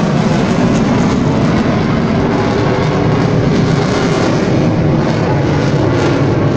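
Jet aircraft engine noise, loud and steady, from a jet flying an air-show climb overhead.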